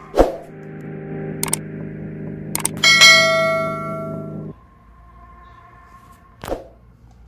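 Subscribe-button sound effect: a few sharp mouse clicks, then a bright ringing bell ding that fades, over a steady hum that cuts off abruptly partway through. There is a thump just after the start and another near the end.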